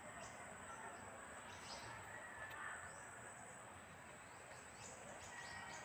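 Quiet background ambience: a faint steady high-pitched tone with a few faint, short chirps scattered through it.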